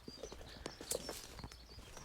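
Footsteps walking over the ground, a few irregular soft knocks, with small birds chirping.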